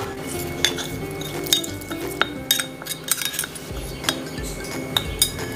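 Steel spoon clinking and scraping against a small metal tempering pan and the cooker as ghee tempering with cashews and curry leaves is scraped into a pot of pongal: a string of sharp clinks, one ringing briefly.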